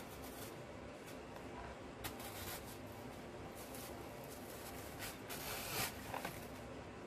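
Rustling and scratching of artificial Christmas greenery and berry picks being handled and pushed into the arrangement, in short irregular bursts, the loudest a little before the end.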